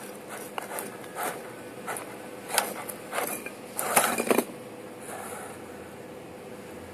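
RC rock crawler on 1.9-inch Pit Bull Growler tires clambering over concrete rubble: tires and chassis scrape and knock against the rocks in irregular bursts, thickest and loudest around four seconds in, over the steady faint whine of its drivetrain. After about four and a half seconds only the steady sound remains.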